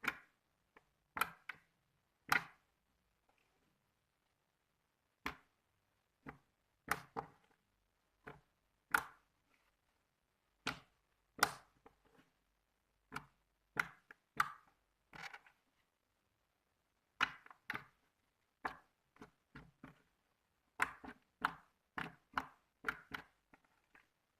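Thick, glossy slime being pressed and poked by hand, giving sharp clicking pops at irregular intervals, several in quick succession near the end.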